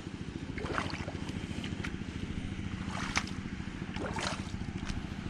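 A steady low rumble throughout, with a few light crunching footsteps on coral rubble and rock, about a second in, near three seconds and near four seconds.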